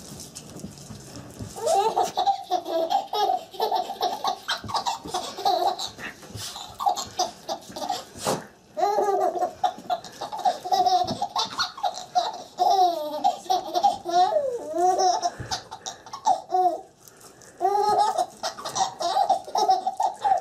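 A baby laughing in long runs of high-pitched laughs, with a short pause about three-quarters of the way through.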